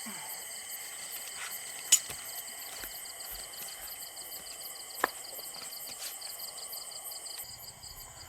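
Insects chirring steadily in a high, pulsing drone, with two short sharp clicks, one about two seconds in and one about five seconds in.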